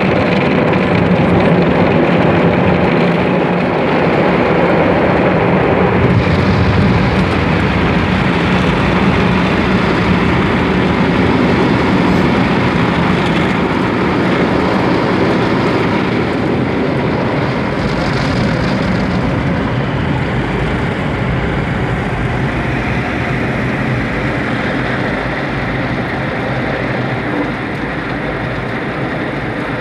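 Automatic car wash heard from inside the car's cabin: water spray and wash machinery run steadily over the body and windshield, with a low hum underneath.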